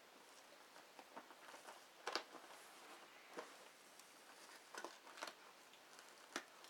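Faint, scattered taps and scrapes of hands handling a cardboard shipping box, with a few sharper clicks spread through.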